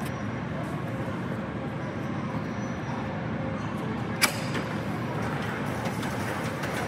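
A sectional overhead loading-dock door being opened by hand. A sharp clack about four seconds in as it is released and shoved upward, then the panels rolling up along their tracks, over a steady warehouse background noise.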